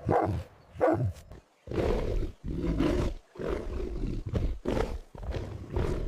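A big cat roaring and growling: a run of short calls and a couple of longer ones.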